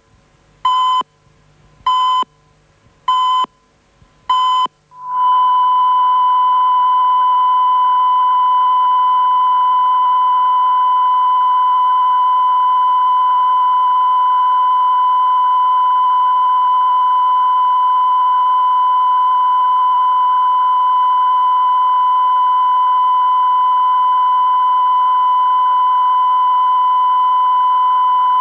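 Television close-down signal: short beeps of a single pitch about once a second over the 'turn off the TV' reminder, then about five seconds in a continuous test tone of the same pitch that holds steady with the UEIT test card after the end of programming.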